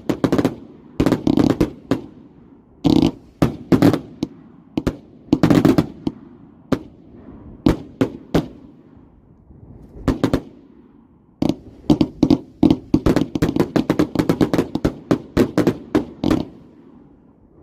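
150-shot consumer firework cake firing a rapid series of sharp bangs in clusters, with short pauses between them. About two-thirds of the way through it fires a denser run of bangs lasting around five seconds.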